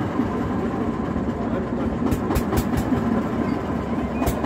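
A motorboat engine running steadily with a low, even drone, and a few sharp clicks about two seconds in and again near the end.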